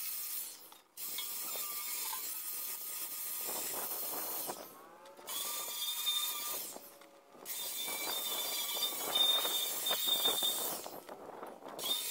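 Angle grinder with a flap disc grinding the rusty steel frame of a trailer in several passes. Between passes there are brief lulls where the disc spins free and the motor's whine comes through.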